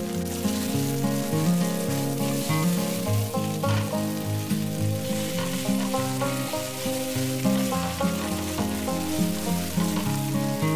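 Chive pancake batter sizzling steadily in hot oil in a frying pan, with background music playing.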